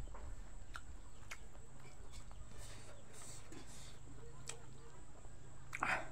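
Close-up sounds of a person eating rice by hand: faint scattered mouth clicks and soft smacks, and a louder short smack near the end as a handful of rice goes into the mouth, over a steady low hum.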